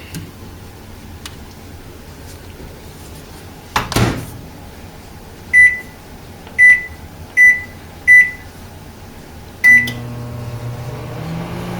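A microwave oven door shuts with a knock, then its keypad beeps five times as the cooking time is set. The 1000-watt oven then starts with a steady low hum.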